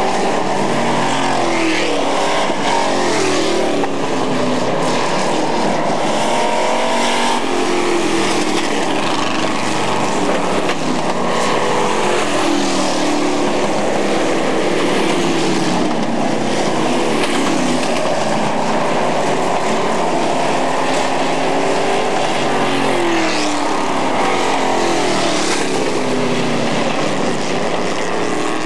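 Several dirt-track super truck engines racing, their pitch repeatedly rising and falling as the trucks accelerate down the straights and lift for the turns.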